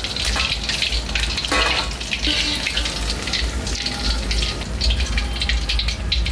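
Mutton mince kababs deep-frying in hot oil in an iron kadai: a steady crackling sizzle full of small pops.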